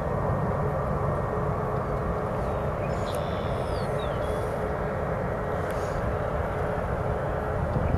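Steady drone of jet aircraft engines running at an airport, with a constant hum held on top. A few faint high chirps come about three seconds in.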